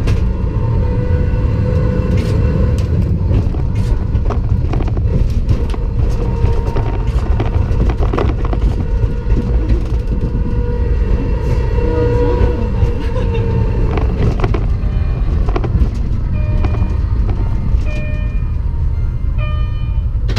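Ride-on miniature train modelled on the KiHa 72 Yufuin no Mori, running on its small-gauge track: a steady heavy rumble of wheels on rail, with sharp clicks over the rail joints and a wavering wheel squeal now and then.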